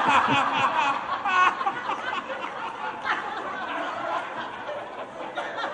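An audience in a large hall laughing, loudest at the start and dying down into scattered chuckles and chatter.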